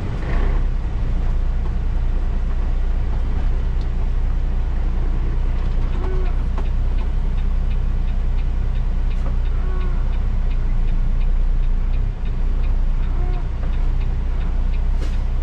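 Straight-piped Cummins diesel in a Peterbilt 379 running at low speed, heard inside the cab as a steady deep drone. A few short squeaks come through about six, ten and thirteen seconds in, which the driver puts down to the truck sitting parked after a wash, with a faint steady ticking behind them.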